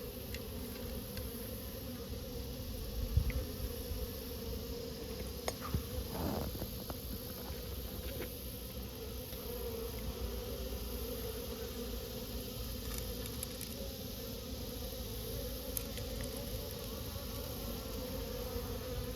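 Honeybee colony buzzing steadily, a hum that wavers around one pitch, with a few faint clicks and scrapes.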